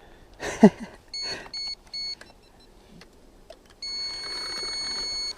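Electronic beeper of an electric enduro motorcycle sounding three short beeps and then one long beep at the same pitch, as when the bike's electronics are switched on. A brief falling sweep comes just before the beeps.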